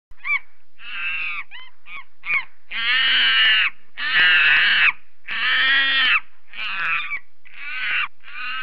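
A series of loud animal calls: a few short, quick rising-and-falling cries, then about six longer drawn-out calls, each under a second, with silent gaps between them.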